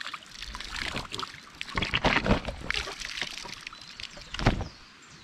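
Pond water sloshing and pouring as a sample is scooped up to check it for zooplankton, with two louder splashes, about two seconds in and again near the end.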